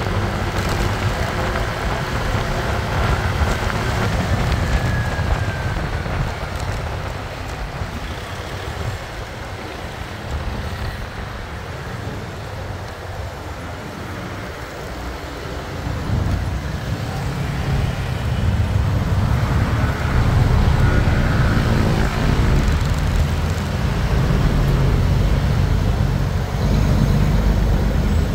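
Motorcycle riding through street traffic: a steady engine and road rumble that gets louder from about halfway through.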